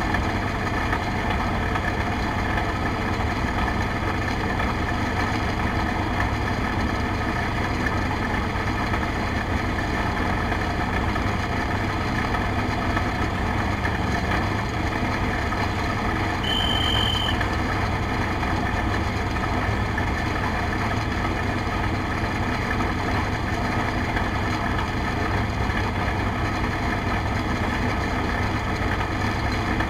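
Race car's engine idling steadily while the car sits stationary, heard from the open cockpit. A short high beep sounds once a little past halfway.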